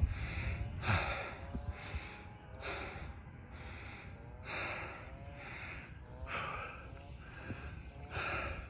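A man breathing hard and fast, loud breaths about one a second, winded from a three-mile uphill hike to a peak.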